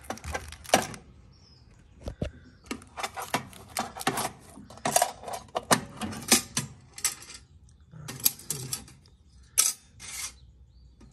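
Metal hand tools clinking and rattling against each other as they are handled and shifted about inside an old toolbox, in irregular clusters of sharp knocks with a few short pauses.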